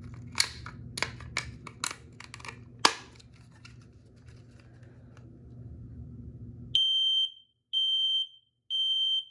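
Kidde i9040 smoke alarm sounding on test: three loud high-pitched beeps, each about half a second, in the standard temporal-three alarm pattern, showing that the unit works. Before the beeps there are a few seconds of sharp clicks as the plastic alarm is handled.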